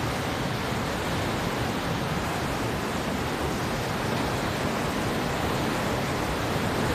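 Fast-running river in spate, its water rushing steadily with no let-up.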